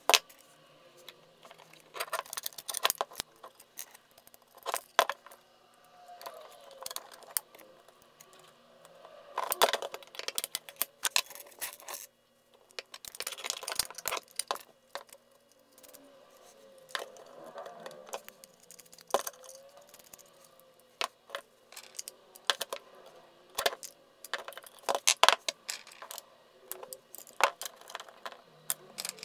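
Irregular clicks, clinks and short rattles of small metal parts as a guitar fuzz pedal's painted metal enclosure, steel bracket and jacks are handled and fitted back together, with a nut driver turning a jack nut near the end.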